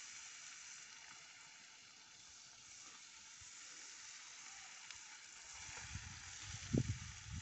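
Tomato-and-onion masala sizzling steadily in a pan over a wood fire, with a few low thuds near the end as the pan is handled.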